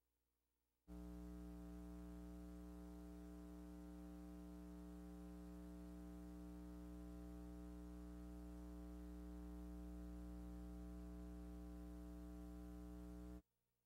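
Faint, steady electrical hum: a low buzz with many evenly spaced overtones and no other sound. It starts about a second in and cuts off shortly before the end.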